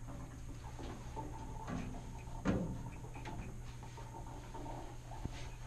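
Scattered light knocks and rustles, with one louder thump about two and a half seconds in, over a steady low hum.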